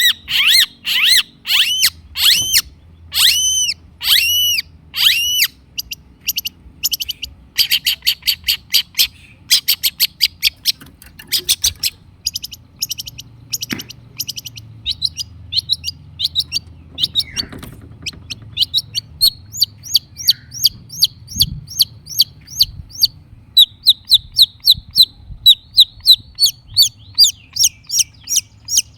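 Long-tailed shrike singing loudly: long runs of short, high arched chirps repeated several times a second, with brief pauses between runs.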